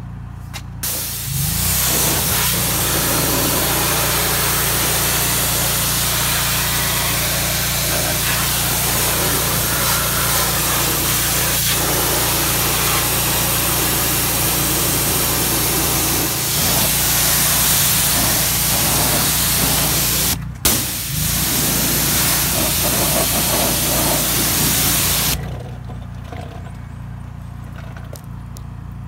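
Kranzle K1322TS electric pressure washer spraying: the loud, steady hiss of its high-pressure water jet blasting a tire and wheel well. It starts about a second in, breaks off for an instant about twenty seconds in, and stops about four seconds before the end. A steady low hum runs underneath throughout.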